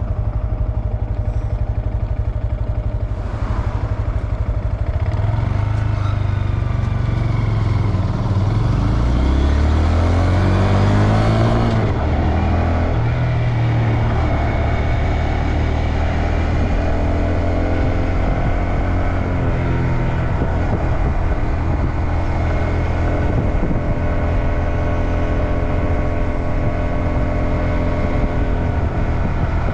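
Honda Grom's small single-cylinder engine, heard from the rider's seat. It idles for the first few seconds, then rises in pitch as the bike pulls away, dips at a gear change about eleven seconds in and climbs again, then runs steadily at cruising speed.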